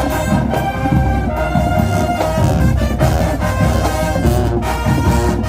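High school marching band playing loud, brass-heavy music, trumpets and trombones over a heavy low beat.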